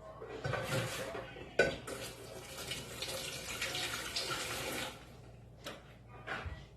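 Kitchen tap running for about four and a half seconds, then shut off, with a sharp knock about a second and a half in.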